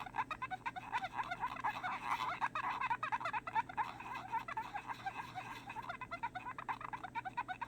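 Squeaking of a camera lens being rubbed clean with alcohol: a quick run of short squeaks, several a second.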